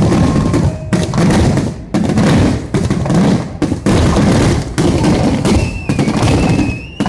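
Fireworks display: aerial shells bursting one after another in rapid succession, deep booms mixed with sharper cracks.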